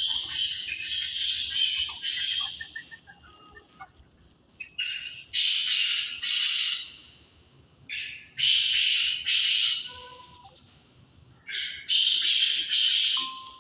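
Black francolin calling: four harsh, grating bouts of about two seconds each, a few seconds apart.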